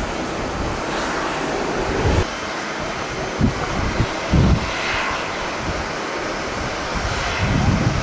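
Jet airliner engines running with a steady rushing noise, while strong wind gusts buffet the microphone with short low thumps several times in the middle and near the end.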